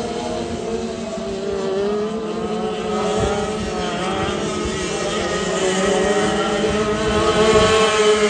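Several two-stroke dirt kart engines racing, their pitches rising and falling as the karts brake and accelerate around the track, getting louder near the end as karts pass close by.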